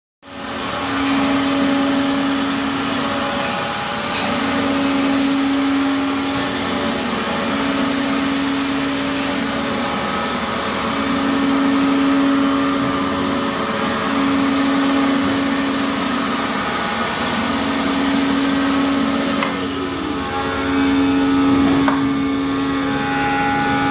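Rottler 5-axis CNC machine milling the ports of a GM LS cathedral-port cylinder head casting: a steady machine hiss under a humming cutting tone that comes and goes in passes of about two to three seconds, with a short falling whine about three-quarters through.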